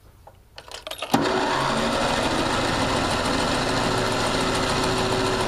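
Wheel Horse A90 garden tractor's engine being cranked over by its starter for a compression test, turning over steadily for about four and a half seconds without firing. It starts about a second in.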